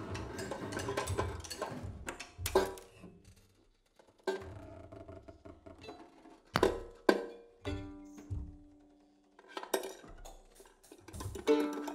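Sparse, free-sounding live music from tenor banjo, double bass and drums: scattered sharp strikes and clatters, several ringing on after the hit. A held pitched note sounds twice in the second half. The banjo is laid flat and played with a stick, and the bass is bowed.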